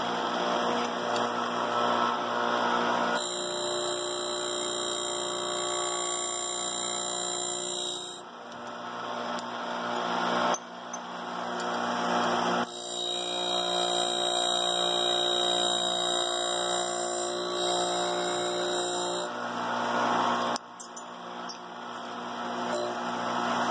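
Three-phase surface grinder running on a frequency converter: a steady machine whine of several tones, with the hiss of the wheel grinding a high-carbon steel knife blank coming and going as the table is moved back and forth, loudest at the start, around eleven seconds in and around twenty seconds in.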